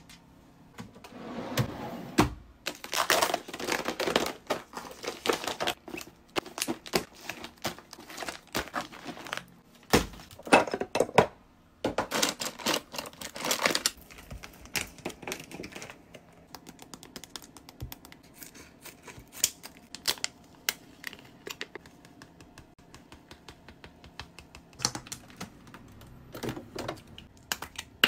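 Foil face-mask sachets being handled, giving stretches of rustling and crinkling, then a long run of light, quick clicks and taps in the second half.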